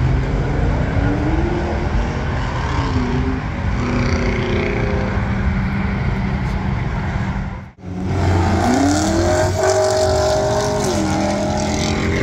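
Supercar engine accelerating hard, its pitch climbing and then dropping at gear changes. After an abrupt cut about two thirds of the way through, a second hard acceleration rises and shifts the same way.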